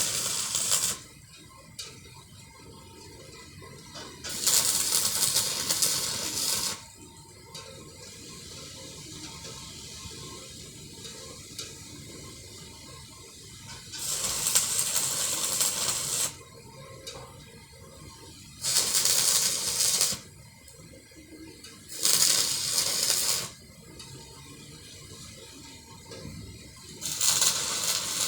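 Electric arc welding in short runs: six bursts of crackling hiss, each lasting one to two and a half seconds, with pauses between them.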